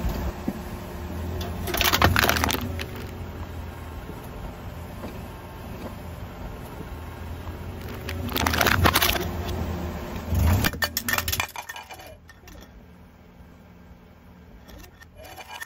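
Car tyre rolling over an aluminium drink can and crushing it flat: sharp crunches of crumpling metal about two seconds in and again around nine and ten seconds, over the low sound of the slowly moving car.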